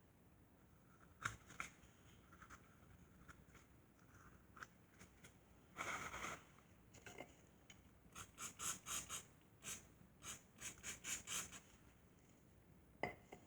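Faint handling noises from work on the transmission: scattered clicks and light scrapes, a short rush of noise about six seconds in, then a quick run of about a dozen short scraping strokes and a sharp click near the end.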